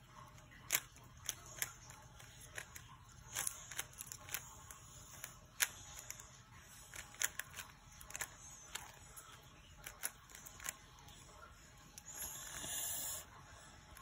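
A 3x3 Rubik's cube being turned by hand during a timed solve: irregular sharp clicks and clacks of the layers turning, in quick runs with short pauses. A brief rustling hiss about twelve seconds in.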